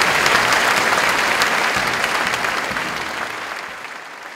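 A large theatre audience applauding, a dense wash of many hands clapping that fades steadily away over the last couple of seconds.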